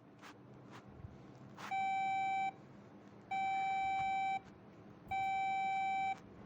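Emergency alert alarm tones: three long, identical electronic beeps, each under a second, about a second apart. A few faint clicks come before them.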